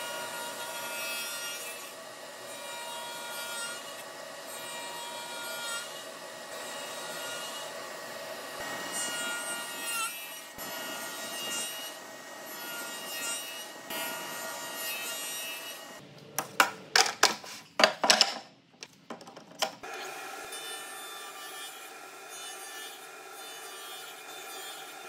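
King Industrial 12-inch radial arm saw cutting across a hardwood board, taking out the waste of half-lap joints in repeated passes of the blade. A run of sharp knocks comes about two-thirds of the way through.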